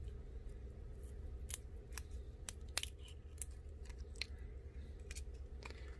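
Thin pry card clicking and scraping as it is worked under an iPhone 8 home button to free it from the old screen assembly: a string of small, sharp, irregular ticks over a faint low hum.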